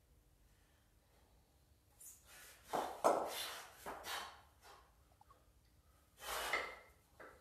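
A person breathing hard under the exertion of double kettlebell half-snatches. There is a run of sharp, noisy breaths about two seconds in, a pause, and then another forceful exhale near the end.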